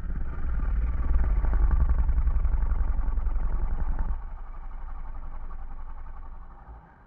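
Snoring beetle toy giving one long, raspy, buzzing snore, dragged out and distorted by extremely low batteries. It is loud for about four seconds, then drops to a softer snore that fades out near the end.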